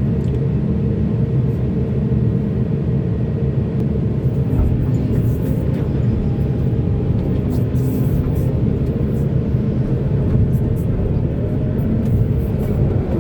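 Heavy diesel engine of mining machinery running steadily in a low, even rumble, with short high clicks now and then.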